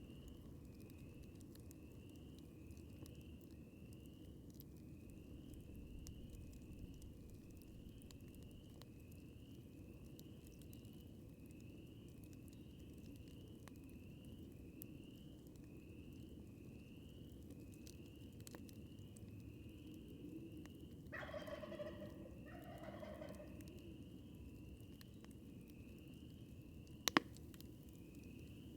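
A wild turkey gobbles once, about two-thirds of the way through, over the low, steady hiss and faint crackle of a campfire. A high, short chirp repeats about twice a second throughout, and a single sharp pop from the fire comes near the end.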